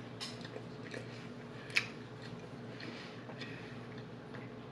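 Close-miked chewing of food with the mouth: soft, wet, scattered smacks and clicks, one sharper click a little under two seconds in.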